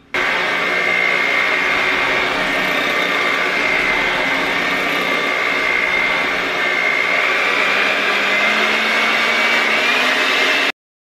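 Electric hand mixer running steadily with a high whine, its beaters creaming butter, sugar and eggs into pound cake batter. It cuts off suddenly near the end.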